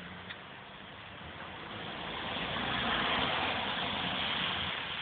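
A car passing on a wet road: the hiss of tyres on water builds for a couple of seconds, peaks about three seconds in, then fades away.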